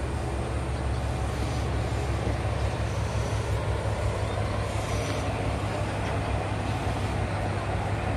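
Diesel railcar standing at the platform with its engine idling: a steady low hum.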